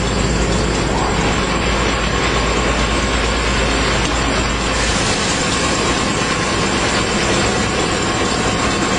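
Toilet roll and kitchen towel converting line running: a loud, steady mechanical din from its rollers, pulleys and drive. A deep low hum under it drops away about five seconds in.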